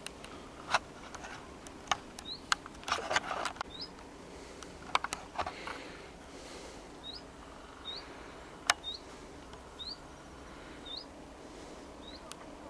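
A small bird repeatedly giving a short, high, rising chirp, about one a second from about two seconds in. Scattered sharp clicks and brief rustles of grass underfoot, the loudest click about two-thirds of the way through.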